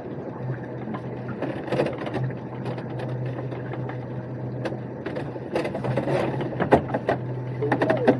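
Small fishing boat's machinery running with a steady hum while a crab pot is hauled up the side, with irregular clicks, knocks and clatter from the rope and pot, busier in the second half.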